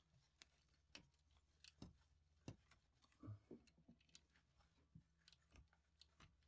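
Near silence broken by faint, irregular clicks of a hand wrench as the rocker shaft bolts on a 5.7L Hemi cylinder head are turned down a little at a time, over a steady low hum.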